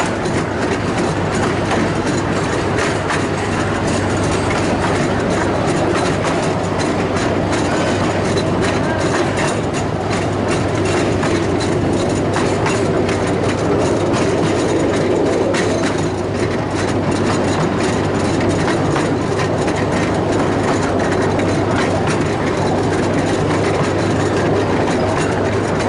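Miniature railway train running along narrow-gauge track: a steady rumble of the carriage wheels on the rails with fast, continuous clicking and a low steady hum underneath.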